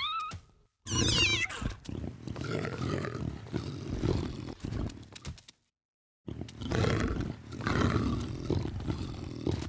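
A rough animal roar, in two long stretches with a short silent gap between them, voicing the cartoon bull. A brief high wavering squeal comes about a second in.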